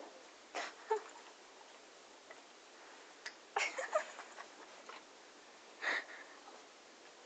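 A horse sniffing and licking at an ice lolly held to its muzzle: a few short, breathy sniffs and wet licks, two close together near the start, a quick cluster around the middle and one more near the end.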